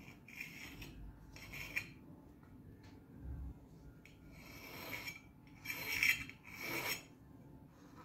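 Scraping and rubbing as a copper pipe is handled and slid against the edge of a cardboard box on a wooden tabletop, in several irregular strokes, the loudest from about five to seven seconds in.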